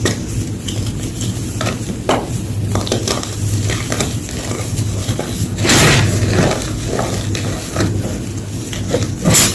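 Blocks of gym chalk crunching and crumbling in irregular crackles, with a bigger crunch about six seconds in and another near the end, over a low steady hum.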